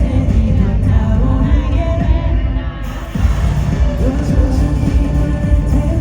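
Live pop song performed through a concert PA: a singing voice over a loud backing track with a heavy bass beat. The backing briefly thins about two seconds in, then the full beat comes back about a second later.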